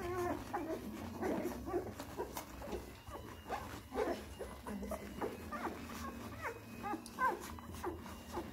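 Twelve-day-old Dalmatian puppies nursing, giving a string of short, high squeaks and whimpers as they suckle.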